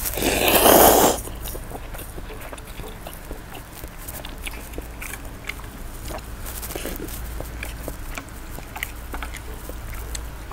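A loud slurp of a mouthful of instant noodles lasting about a second, followed by close-up chewing with many small wet clicks and smacks of the mouth.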